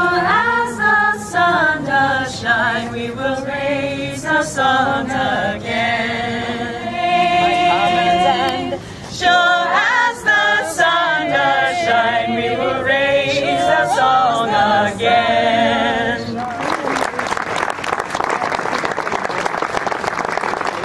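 Unaccompanied singing by the performers, which ends about sixteen seconds in, when audience applause starts and carries on.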